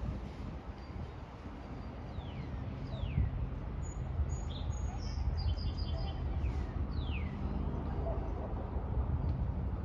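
Wild songbirds calling: pairs of clear whistled notes sliding downward, a few seconds apart, with a burst of higher chirps in the middle, over a steady low outdoor rumble.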